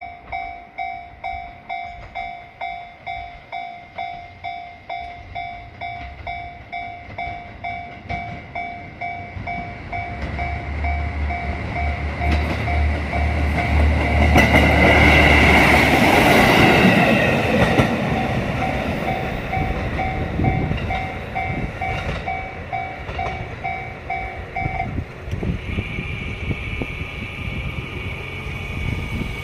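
Japanese level-crossing alarm ringing steadily, a little under two strikes a second, as a KiHa 54 diesel railcar approaches and passes. The train's engine and wheels rise to their loudest about fifteen to seventeen seconds in, then fade. The crossing alarm stops about twenty-five seconds in.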